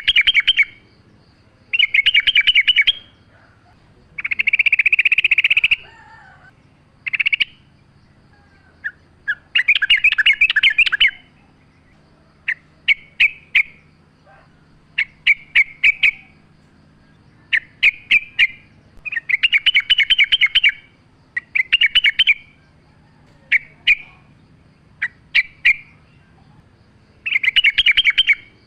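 Yellow-vented bulbul (trucukan) singing: fast, bubbling chattering phrases about a second long, repeated every one to two seconds, with short single chirps in between.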